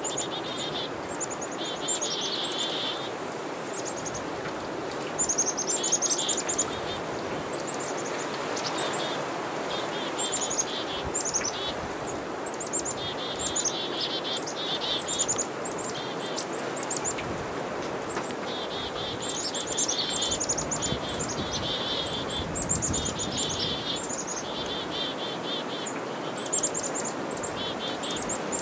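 Black-capped chickadees giving repeated chick-a-dee mobbing calls at a northern pygmy-owl: high thin notes followed by rapid runs of buzzy dee notes, over and over. This is their alarm against a small predatory owl. A steady background noise runs underneath.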